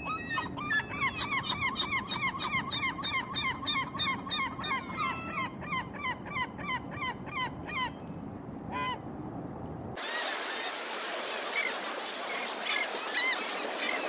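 Herring gull's long call: a rapid, even run of loud calls, about three a second, lasting some eight seconds, then a single last call. About ten seconds in, the sound switches abruptly to surf washing on a beach with a few fainter gull calls.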